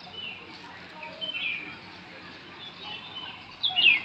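Birds chirping and calling in short notes, with a sharp downward-sliding call near the end that is the loudest sound.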